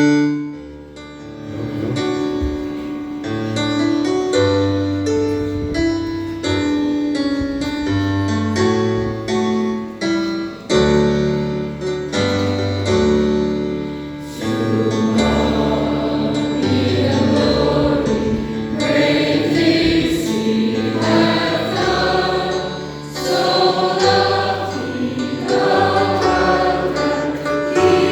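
School anthem: an instrumental introduction of held chords over a bass line for about the first half, then a group of voices comes in singing together over the accompaniment.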